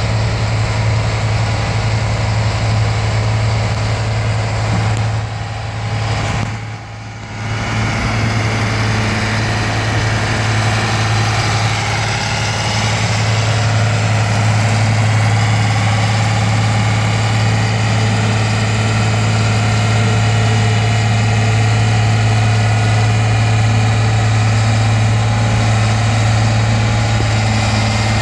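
Caterpillar 12G motor grader's diesel engine running steadily as the grader works a slope with its blade, a strong low drone that dips briefly about six seconds in.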